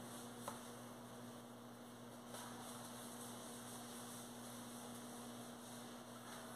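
Faint steady electrical mains hum over a low hiss, with one small click about half a second in.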